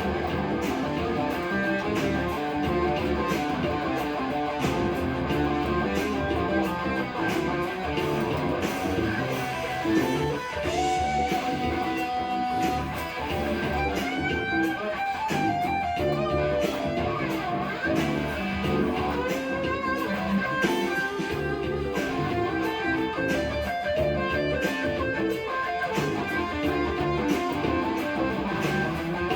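Guitar-led music playing with a steady beat.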